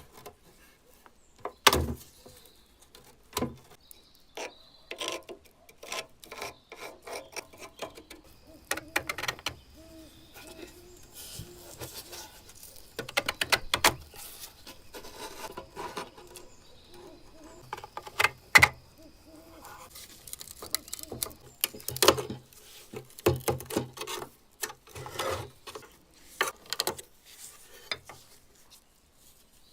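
Hands working on an old rusty metal lantern: irregular clicks and knocks of metal parts being handled, with stretches of rubbing and scraping.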